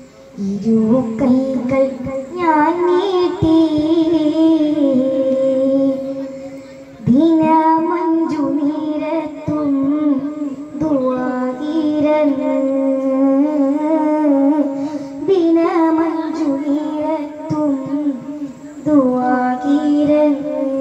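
A single high voice singing a slow melody in long held, wavering notes, with a new phrase starting every four seconds or so.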